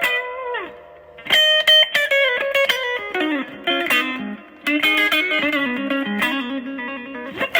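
Electric guitar played through a Yamaha THR5 V.2 desktop modeling amp, using a tone set up in THR Editor. It plays fast single-note lead phrases and a few struck chords, with a note sliding down in pitch about half a second in and again near the end.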